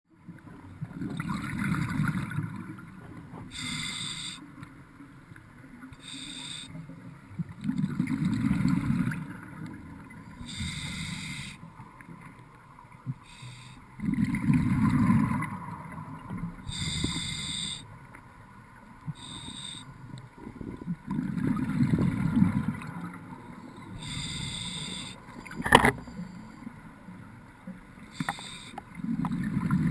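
Scuba diver breathing through a regulator: a short hiss on each inhale, then a low rumble of exhaled bubbles, in a slow cycle about every six or seven seconds. A single sharp click comes near the end.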